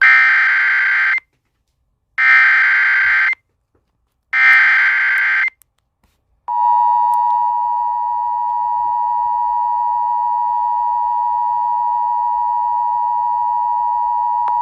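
Emergency Alert System header: three short bursts of SAME digital data, each about a second long with about a second between them, carrying the coded alert. About six and a half seconds in, the steady two-tone EAS attention signal starts and holds.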